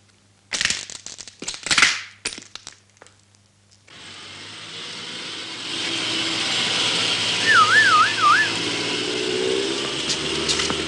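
A few sharp knocks and scuffs, then a police car's engine swelling as it approaches. Its siren gives a short warble of three rises and falls about midway, and the engine note climbs near the end.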